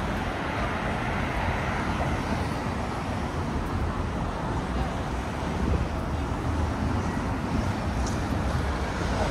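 City street traffic: a steady low rumble of passing motor vehicles, with faint voices of passers-by.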